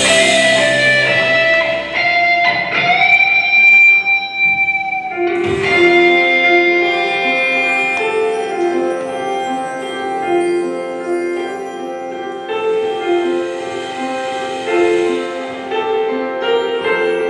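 Live worship band playing an instrumental passage on electric guitars, bass and drums. A sustained guitar note glides up in pitch and is held. Then a repeating pattern of short melodic notes takes over, with cymbal washes.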